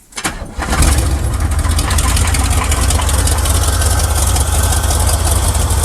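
1979 Chevy pickup's V8 engine catching about half a second in, then idling steadily with a misfire on one cylinder.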